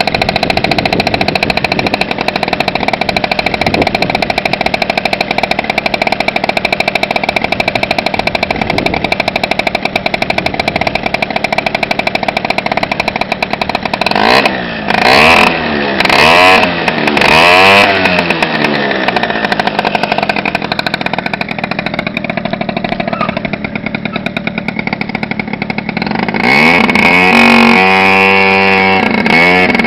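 Piaggio Zip scooter engine running at a steady idle. About halfway through, the throttle is blipped several times, each rev rising and falling quickly. Near the end it is revved again, louder and repeatedly.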